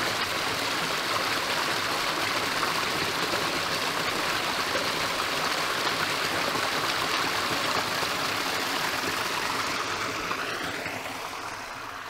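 Small forest brook splashing and gurgling steadily as it spills over a short drop into a pool. The water sound fades near the end.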